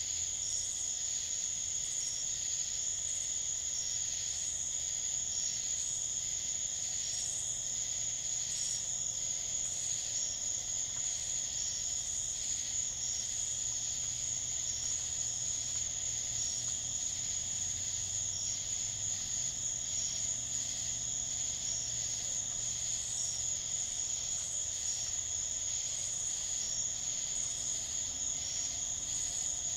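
Night insect chorus of crickets: a continuous high-pitched trill with a second call pulsing regularly, roughly one to two times a second, unchanging throughout.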